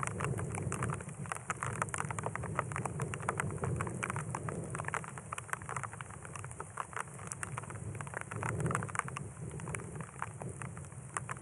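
Desert rainstorm: raindrops pattering in dense, irregular ticks, with a low rumble of distant thunder underneath that swells about three-quarters of the way through.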